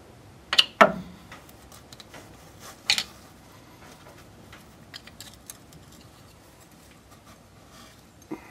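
Sharp metallic clicks and scrapes of a screwdriver and hands levering the old front crankshaft oil seal off the crankshaft nose of a Land Rover 2.25 engine: two loud ones close together just under a second in, another about three seconds in, and lighter ticks between.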